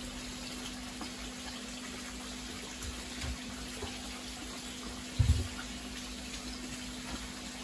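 Steady running, splashing water, as from a pump-fed fish tank, with a low steady hum underneath. A dull low thump sounds about five seconds in, after a smaller one a couple of seconds earlier.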